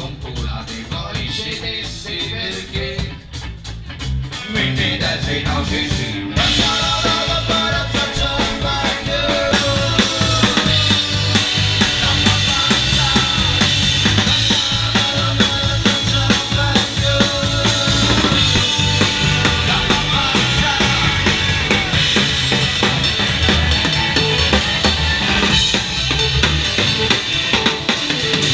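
Live rock band playing an instrumental passage on drum kit with cymbals and electric guitar. It starts sparse and quieter, builds, and comes in at full strength about six seconds in.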